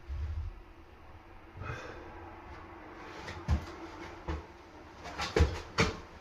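Handling noise as a door closer is lined up on a door: a few light knocks and clicks at irregular intervals, most of them in the second half, with a short rustle.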